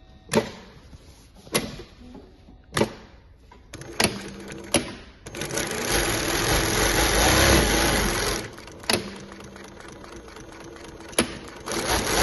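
Twin-needle industrial sewing machine with a roller puller: a few sharp single clicks about a second apart, then the machine stitching through denim at speed for about three seconds, two more clicks, and stitching again near the end.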